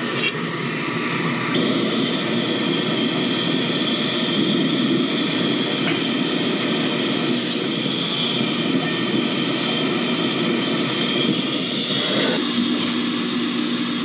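Steady, loud rush of air from a blower running on a gas-fired rooftop package unit. The hiss brightens about a second and a half in, and a low hum grows stronger near the end.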